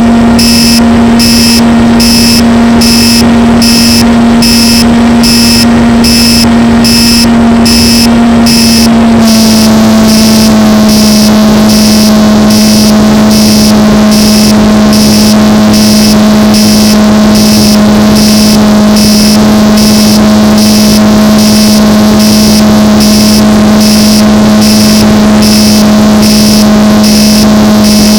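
RC plane's motor and propeller, heard loud and close from the onboard camera, running at a steady pitch that steps down slightly about nine seconds in. A regular pulsing hiss about twice a second runs alongside it.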